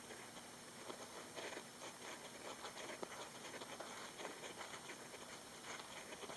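Roborovski dwarf hamster digging fast in sand: a rapid, continuous scratching patter of paws and flicked sand.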